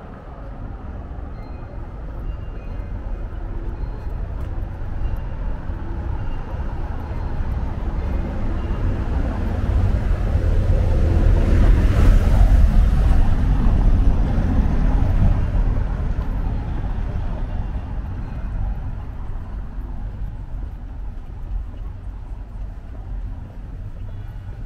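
A vehicle passing by: a low rumble that swells to a peak about halfway through, then fades away.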